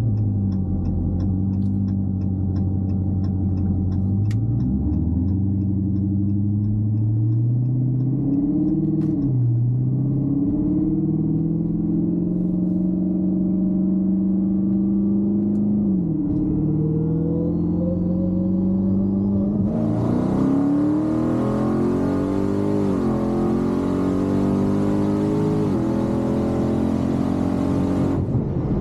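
Twin-turbo, supercharged Dodge Hellcat Redeye V8 heard from inside the cabin, pulling up through the gears: the revs climb and drop back at each shift, about five times. A light ticking runs through the first few seconds, and a steady rushing hiss joins about twenty seconds in and stops just before the end.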